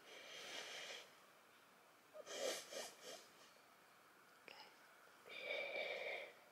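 A young girl sniffling and breathing shakily as she calms down after crying, in three short, faint bouts about two seconds apart.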